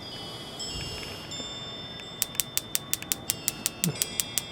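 Electronic grill igniter sparking at the side burner electrode: a rapid, even train of sharp clicks, about six or seven a second, starting about two seconds in. A healthy spark is jumping the gap.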